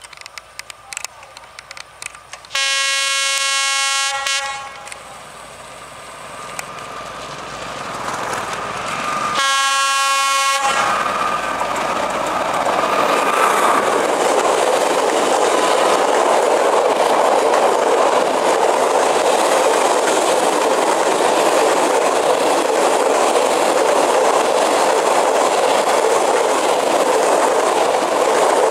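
D11H diesel locomotive sounding its horn twice: a blast of nearly two seconds about two and a half seconds in, and a shorter one about ten seconds in. Then the locomotive and a long freight train of boxcars roll past close by, a loud steady rumble and clatter of wheels on the rails.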